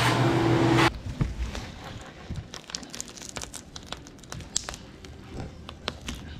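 A steady power-tool whir for about the first second that cuts off suddenly, then crinkling, crackling and small clicks as the old rubber windshield seal is pulled away from the windshield frame.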